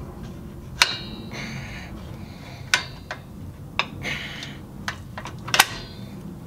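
Combination wrench turning a bolt on a drum brake backing plate: a few sharp metallic clicks spread out, with short scraping sounds in between.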